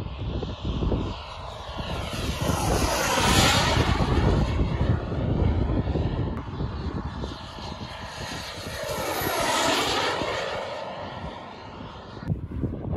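CARF Bolt RC model jet's JetCat turbine at speed, making two fly-by passes. Each is a jet whine that swells as the plane approaches and fades as it goes away with a sweeping, phasing sound: the first and louder one about three and a half seconds in, the second about nine and a half seconds in.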